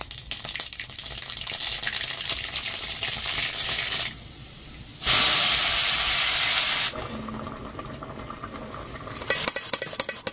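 Food sizzling and crackling in hot oil in a cooking pan. About halfway through, a loud, even hiss runs for about two seconds and stops abruptly. Quieter crackling follows.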